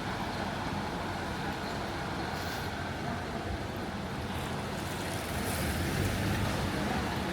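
Road traffic on a city street: a steady hum of passing vehicle engines and tyre noise, swelling somewhat about two-thirds of the way through.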